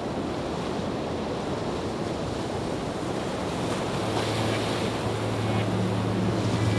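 Steady rushing noise of wind and water. About four seconds in, a low steady hum joins it.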